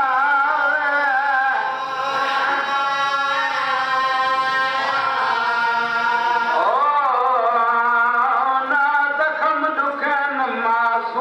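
A man's voice chanting a Shia mourning lament for Imam Husain into a microphone, in long held notes with wavering ornaments and a sweeping rise and fall about two-thirds of the way through.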